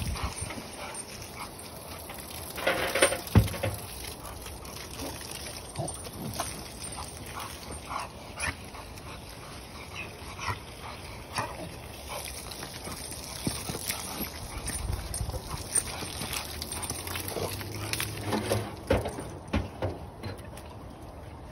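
A dog making scattered short sounds, the loudest about three seconds in and another cluster near the end.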